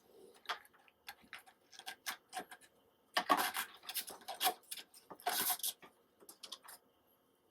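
Hands handling a cardboard paper towel tube coated in peanut butter and bird seed, with wooden sticks: small clicks and scratches, and two louder rustling scrapes a couple of seconds apart near the middle.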